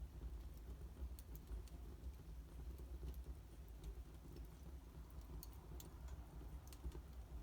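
Wood fire in a fireplace crackling faintly: scattered sharp pops at irregular moments over a low steady rumble.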